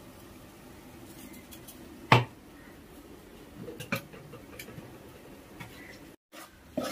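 Metal kitchenware knocking together as green masala paste is emptied from a small steel container into a cooking pot: one sharp clank about two seconds in, then a few lighter clinks, over a faint steady hum.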